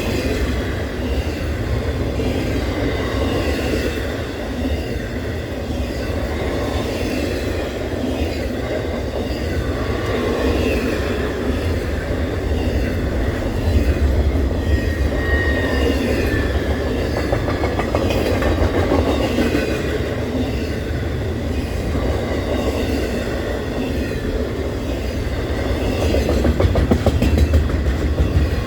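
Freight train cars rolling past: steady wheel-on-rail rumble with clickety-clack, and scattered thin, high wheel squeals.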